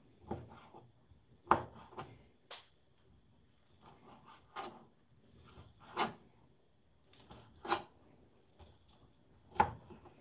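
Kitchen knife chopping shredded cooked chicken on a plastic cutting board: irregular sharp knocks of the blade against the board, about eight of them, with softer scraping and rubbing between.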